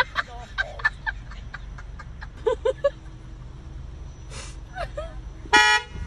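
Car horn sounding on its own as the gear selector is moved, a fault in the car: a string of short toots, then one longer blast about five and a half seconds in.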